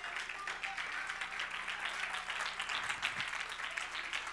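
A church congregation clapping their hands: many overlapping claps at a steady, even level.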